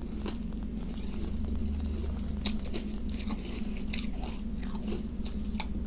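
Mouth chewing and biting crushed ice, with sharp icy crunches at irregular intervals; the loudest crunch comes about four seconds in. A steady low hum runs underneath.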